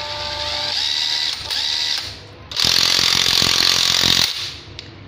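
National EZ6506 cordless impact driver running in reverse. The motor spins freely with a whine for about two seconds. Then, with the socket held by hand, the hammer mechanism engages in a loud, rapid rattle of impacts for nearly two seconds and lets off near the end.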